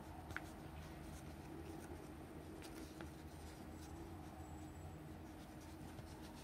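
Faint rustling and light crackling of a sheet of mouse grip-tape stickers on its backing paper, handled and flexed in the fingers, with a few small ticks, over a steady low hum.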